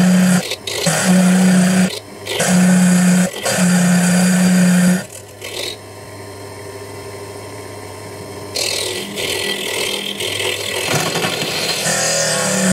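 Proxxon mini mill spinning an 8 mm diamond core drill into wet granite, a grinding whir over a steady hum that comes and goes in spells, quieter for a few seconds in the middle and then steady again. The drilling sounds the way it does because pieces of the granite core have broken off inside the drill and are interfering with the cut.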